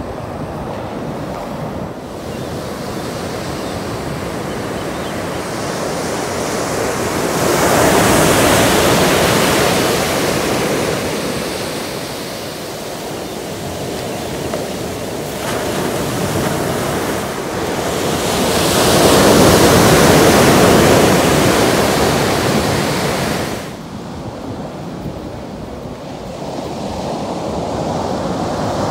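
Ocean surf breaking on a sandy beach: a steady rushing wash that swells louder twice and falls away suddenly a few seconds before the end.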